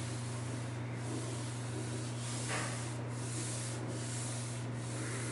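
A hand rubbing back and forth across a replacement steel car door skin, feeling the panel for a dent near the door handle. It makes a steady hiss with brief breaks between strokes about once a second, over a low steady hum.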